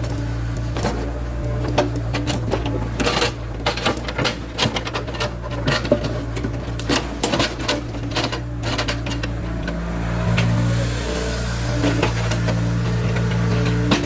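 Caterpillar 307C excavator's diesel engine running steadily, with a rapid, irregular clatter of knocks and clacks for several seconds as stones are moved, then a few more knocks near the end.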